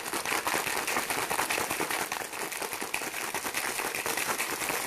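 Ice cubes and water rattling inside a lidded drink bottle as it is shaken hard, a fast, continuous clatter.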